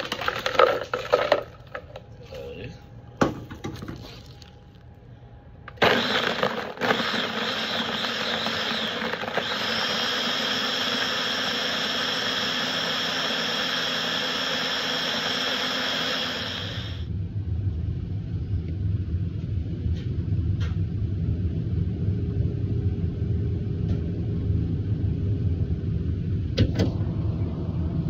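Ice cubes and cooked black beans clattering into a plastic blender jar, then a countertop blender running for about eleven seconds, crushing the ice and blending the black-bean milkshake, its tone changing a few seconds in. It cuts off sharply, leaving a low steady rumble with a few single clicks.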